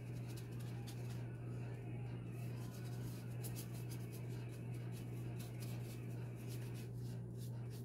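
Light, scratchy brush strokes of painting on a mask, coming and going, over a steady low hum.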